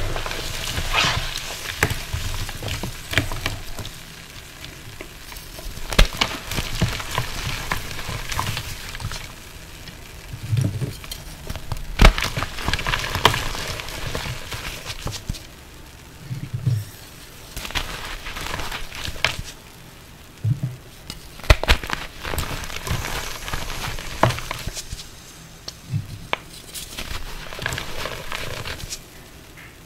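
Wet reformed gym chalk crushed and crumbled by hand into water, sizzling and crackling throughout, with louder surges of crunching every few seconds and a few soft low thumps.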